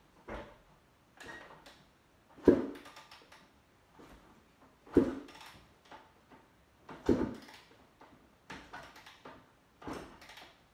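Suzuki RM250 two-stroke dirt bike being turned over by its kickstarter without firing: a series of separate thumps, the loudest about every two and a half seconds, with no engine running between them.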